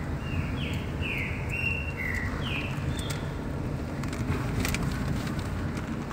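Steady low road and engine rumble inside a moving car's cabin. During the first three seconds a run of about six short, high chirps glides up and down over it, and a few sharp clicks come about two-thirds of the way through.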